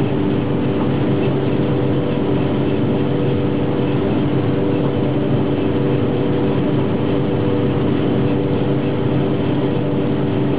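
Combine harvester running steadily while cutting grain, heard from inside the cab: a constant machinery drone with several steady hum tones.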